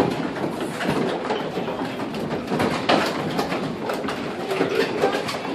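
Wind-driven paint mill machinery running: wooden cog gear wheels meshing and an iron-banded edge-runner stone turning make a steady rumble with irregular clattering knocks.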